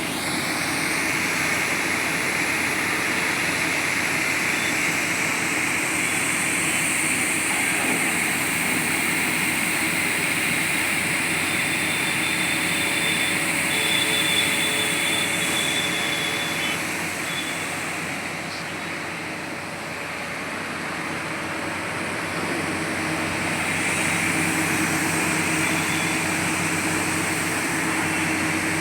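Sany drilling rig running steadily at work: a continuous engine and machinery noise with a broad hiss and a few steady tones. It eases off somewhat about two-thirds of the way through, then comes back up.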